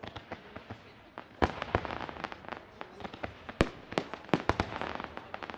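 Aerial fireworks shells bursting: a rapid series of sharp bangs and pops over a continuous crackle. It thickens and grows louder about a second and a half in, and the loudest bang comes past the middle.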